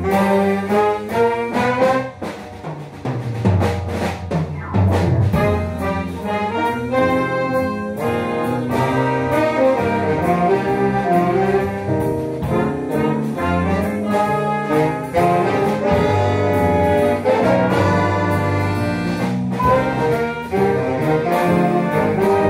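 Jazz big band playing, saxophones among the horns, with a brief softer passage about two seconds in before the full ensemble returns.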